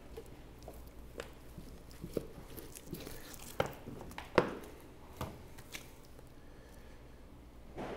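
Scattered light knocks and taps from a butcher handling steaks and a knife on a cutting board: about six of them, the loudest a little over four seconds in.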